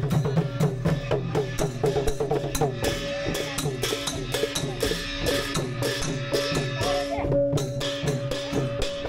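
Lively percussion-led music: a fast, even beat of drum and cymbal strikes under a held note and a wavering melody.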